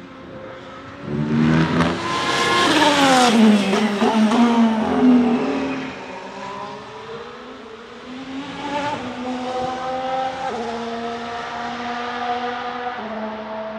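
Ferrari F1-75 Formula 1 car's turbocharged V6 passing at speed, loudest a few seconds in, its pitch falling sharply as it goes by. After it fades, an engine is heard further off, its note dropping in steps at gear changes.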